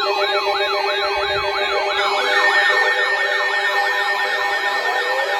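Electronic sirens yelping in fast rising-and-falling sweeps, about three a second, over steady tones. A second siren joins about two seconds in and overlaps the first.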